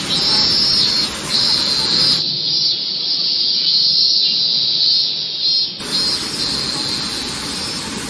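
A high, steady insect chorus, broken briefly about a second in and again near six seconds, over the rush of water falling from a waterfall. The water noise thins out between about two and six seconds while the insects carry on.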